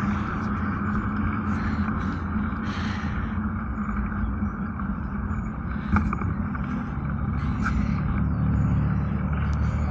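A vehicle engine running at a steady speed while riding, with a constant hiss of wind or road noise. There is a single sharp knock about six seconds in.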